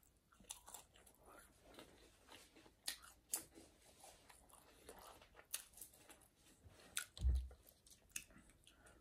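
Close-miked chewing of a mouthful of burger: soft, irregular wet mouth clicks and smacks, with one dull low thump about seven seconds in.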